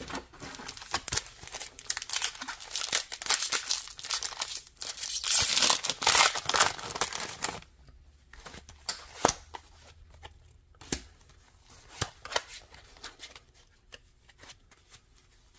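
Foil wrapper of a Pokémon TCG booster pack being torn open and crinkled, a dense rustling for the first seven or eight seconds, loudest a little past the middle of that stretch. After that come scattered light taps and slides of cards being handled.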